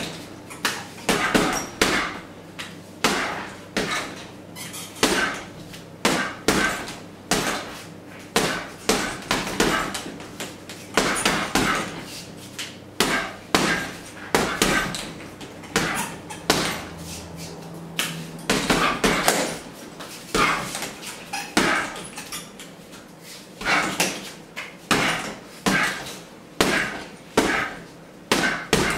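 Boxing gloves punching a hanging heavy bag: repeated sharp thuds in quick combinations of two or three, about every second, with short pauses between combinations.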